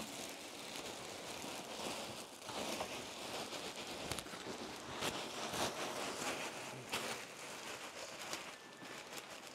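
Plastic sack of polystyrene bean-bag filling rustling and crinkling as it is handled and emptied, with loose beads pattering and hissing like light rain.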